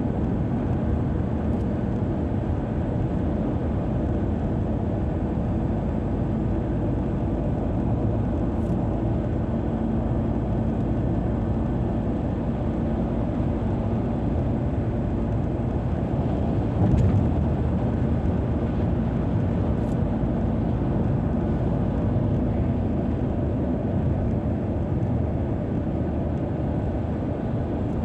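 Steady road noise of a car driving along a highway: tyre rumble and engine hum, heard from inside the car.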